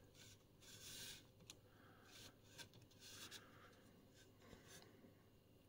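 Near silence, with a few faint soft rubs and small clicks of circuit boards and connectors being handled.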